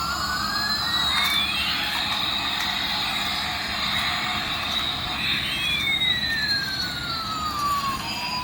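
Recorded jet-engine sound effect of an airliner: a steady hiss with two whining tones. One tone rises and the other falls until they meet after about two seconds; they hold together, then spread apart again near the end.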